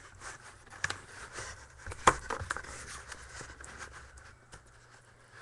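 Handling of a sealed trading-card box as it is being opened: a couple of sharp clicks, the loudest about two seconds in, with rustling and crackling of packaging between them.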